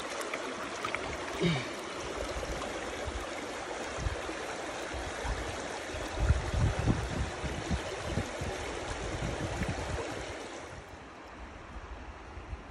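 Shallow river water running and trickling over stones, a steady rushing hiss, with a few low bumps on the microphone; the water sound drops lower about ten and a half seconds in.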